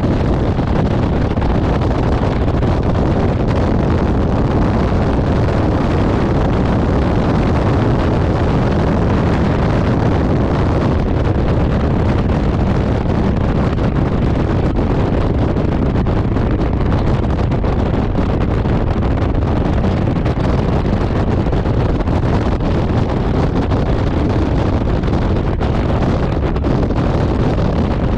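Steady wind rush on the microphone of a Honda Gold Wing touring motorcycle cruising at motorway speed, with the bike's engine and tyre noise running underneath.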